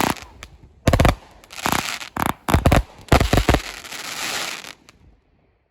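Shogun Pandora's Box 25-shot fireworks cake firing its last shots: a string of sharp aerial bangs, then a dense stretch of crackling from the breaking shells that dies away.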